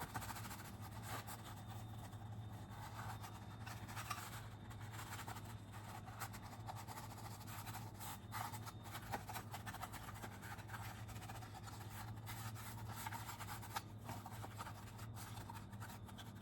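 Faint scratching and rubbing as the gunk-coated inside of a Roomba dust-bin cartridge is scrubbed by hand, over a low steady hum.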